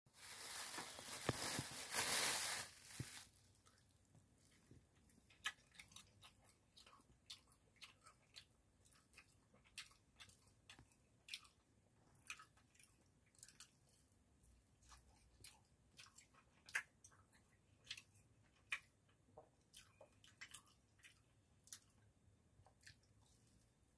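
A plastic bag crinkling loudly for the first three seconds, then close-up chewing of a spicy sauce-coated sundae (Korean blood sausage) skewer: quiet, irregular wet mouth clicks and smacks.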